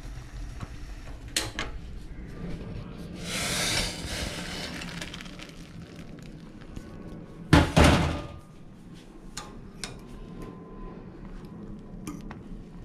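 Kitchen handling of a stainless steel pan and a bowl of noodle soup: a steady low hum with a hissing swell about a third of the way in, then two loud knocks just past halfway, followed by light clicks of cutlery against the bowl.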